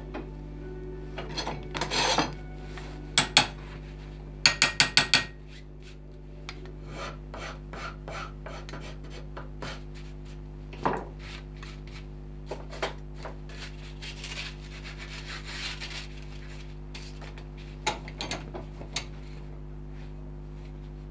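A hand rasp scraping across a wooden carving blank to take off bulk. A run of loud strokes in the first five seconds ends in five quick ones, followed by softer, irregular strokes.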